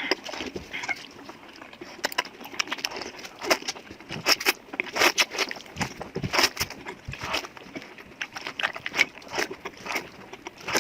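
A person eating noodles close to the microphone: chewing and mouth sounds, with many short, irregular clicks and smacks.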